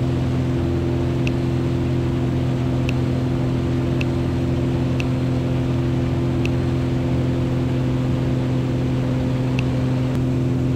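Cessna 182 Skylane's piston engine and propeller running steadily at climb power, an even hum made of several unchanging tones.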